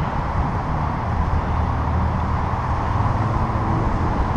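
Steady wind and road noise from a bicycle riding along a concrete sidewalk, picked up on a bike-mounted camera's microphone.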